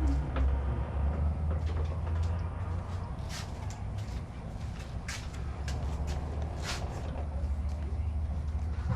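Scattered sharp clicks and clinks of hand tools being picked up and handled, a few seconds apart, over a steady low rumble.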